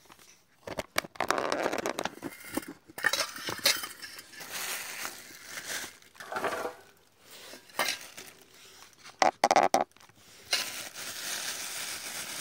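Hands squeezing and kneading a lump of mashed rotten tempeh on an enamel plate: irregular soft crushing and squishing, with scattered clicks and clinks against the plate.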